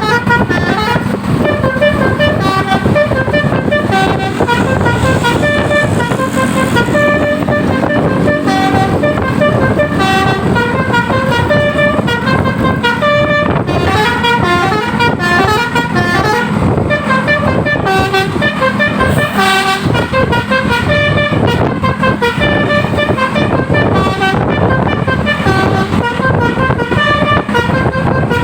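Bus telolet 'basuri' multi-note air horn playing a continuous melody, one note stepping quickly to the next without a break.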